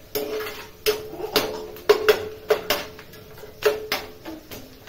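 A metal spoon striking a steel frying pan while stirring, with about nine sharp clangs at uneven intervals. Each clang leaves the pan ringing briefly.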